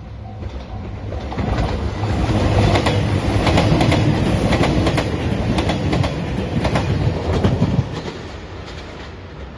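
A train passing close by at speed, its wheels clacking over the rail joints in a quick series of clicks over a heavy rumble. It builds about a second in and drops away near the end.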